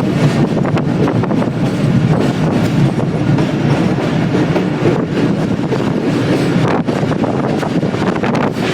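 Passenger train running along the track, a steady rumble of wheels on rails heard from on board.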